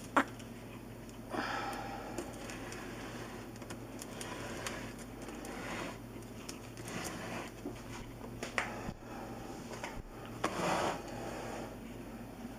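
Sneezing: a sharp, loud sneeze right at the start, then scattered short noisy bursts and a longer burst about ten seconds in.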